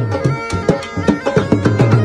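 Bagpipe playing a melody over its steady drone, with a drum beating a quick rhythm underneath.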